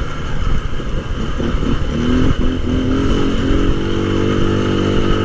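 Tao Tao 200cc ATV's single-cylinder four-stroke engine running. It climbs in pitch over the first few seconds, then holds a steady note.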